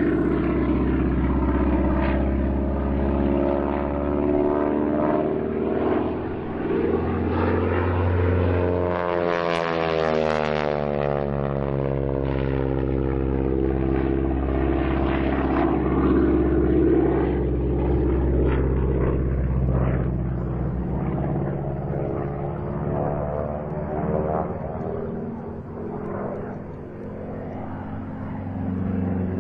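North American T-6 Texan's nine-cylinder Pratt & Whitney R-1340 radial engine and propeller running hard in flight. Its pitch climbs and then drops as the plane sweeps past about ten seconds in.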